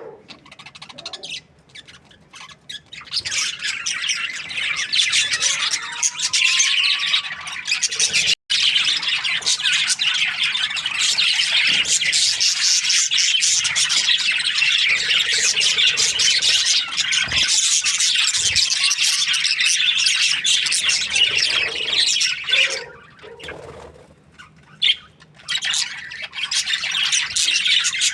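Budgerigars chirping and chattering rapidly as a group. The chatter is sparser at first and thickens after a few seconds, with a short lull a few seconds before the end.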